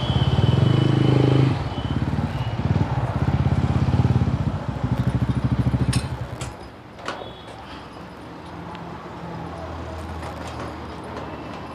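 TVS Ronin 225 single-cylinder engine running with a fast, even pulse, then cutting out about six seconds in, followed by a few light clicks and rattles. This is the engine the owner says makes an abnormal knocking noise, which the service centre calls common.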